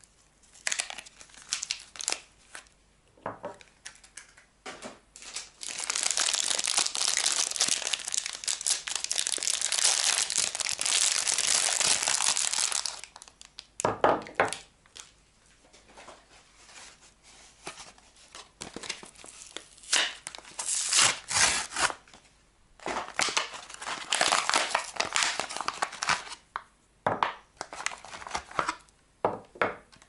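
Soap wrappers crinkling and tearing as bars of soap are unwrapped by hand. There is a long unbroken stretch of crinkling from about six to thirteen seconds in, with shorter bursts of crackling and rustling around it.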